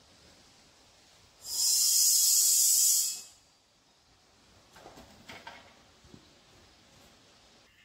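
Compressed air hissing from an air hose into the repaired inner tube for just under two seconds, starting about a second and a half in: the first low-pressure fill of a tube tire on a split-ring wheel, bringing it to about 10–15 psi so it sits against the rim.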